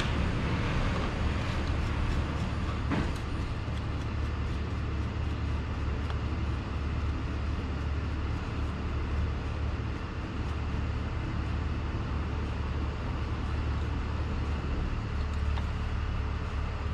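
Steady low machine hum, with a faint click about three seconds in.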